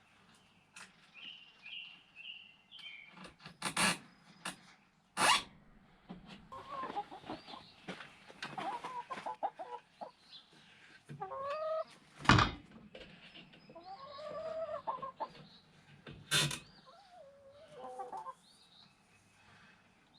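Chickens clucking and calling on and off, with a few sharp knocks in between; the loudest knock comes near the middle.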